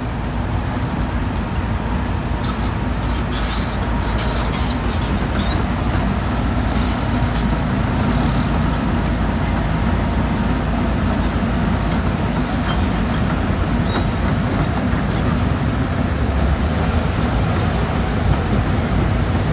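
Excavator's diesel engine running steadily, with scattered light clicks and clinks over the rumble.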